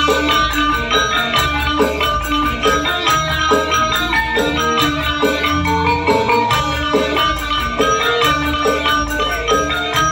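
Live wedding band music with a steady, even rhythm: a sustained melody over percussion, with no singing.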